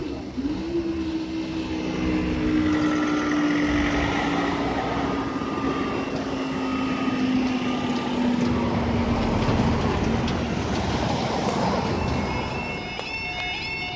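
Class 170 Turbostar diesel multiple unit passing, its steady engine note sinking slowly in pitch before easing off. Near the end, the level crossing's yodel alarms begin warbling.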